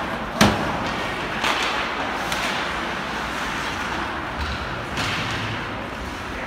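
Ice hockey game in an arena: one sharp bang of play on the ice about half a second in, then a few fainter knocks, over steady rink and crowd noise.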